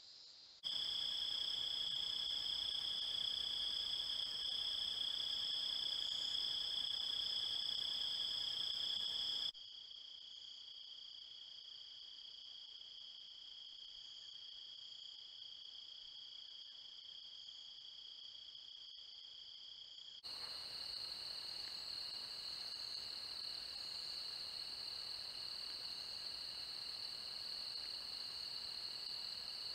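Night chorus of crickets and other insects: steady high-pitched trilling. It gets abruptly quieter about a third of the way through and louder again about two-thirds of the way through, as the recording jumps between clips.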